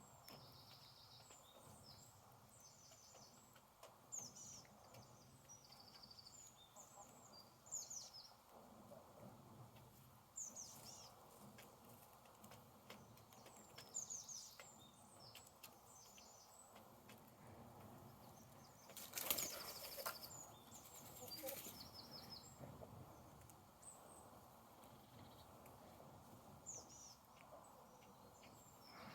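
Faint chirping of small birds, short high calls scattered all through, with a louder rush of flapping wings about two-thirds of the way in.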